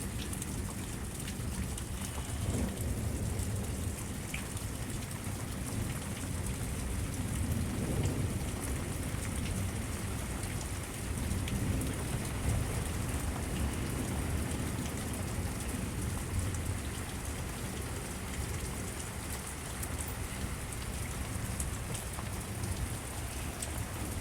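Steady rain pouring and spattering on a carport roof in a thunderstorm. Low rolls of thunder swell a few seconds in and again around the middle.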